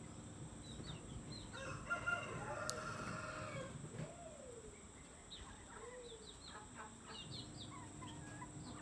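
Faint animal calls: a long drawn-out call about two seconds in, then two short cries that rise and fall in pitch, with scattered small bird chirps.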